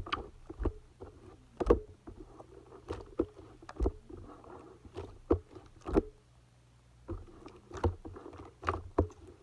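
Clay-mixed slime being squeezed and poked by hand: irregular wet pops and clicks, one or two a second, over soft squishing. A quieter stretch comes around seven seconds in.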